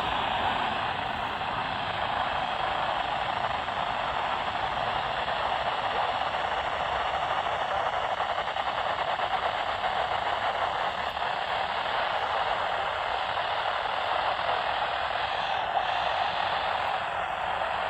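Steady static hiss from a receiver's speaker, tuned to a channel where almost no signal is coming through.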